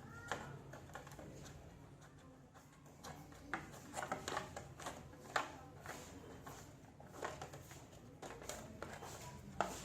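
Irregular light clicks, taps and scraping of hand work with tools and material, growing busier a few seconds in.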